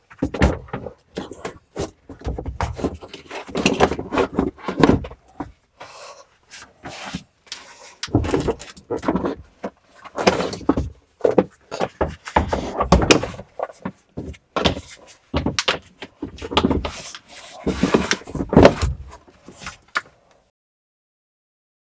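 Irregular clunks, knocks and scraping as a battery is handled and fitted into the battery compartment of a CFMoto 950 Trail side-by-side; the handling stops a couple of seconds before the end.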